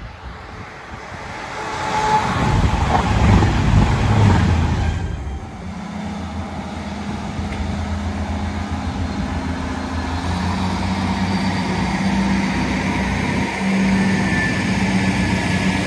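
A train approaches and passes close by, building to a loud rush of wheels and air about three to four seconds in, then cuts off. After that, a Northern Class 158 diesel multiple unit runs along the platform with a steady diesel engine drone and wheel rumble, growing a little louder near the end.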